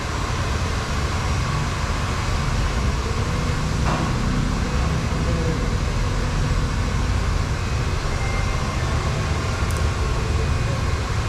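Electric hair clippers buzzing steadily while trimming hair on the side of the head.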